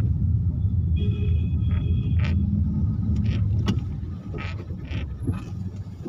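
A car driving slowly through town traffic, heard from inside the cabin: a steady low rumble of engine and road noise. A short high tone sounds about a second in, and several short sharp sounds come in the second half.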